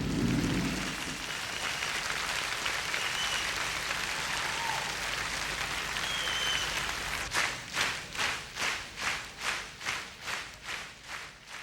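Concert audience applauding, recorded live, then clapping in rhythm at about two claps a second, fading away near the end.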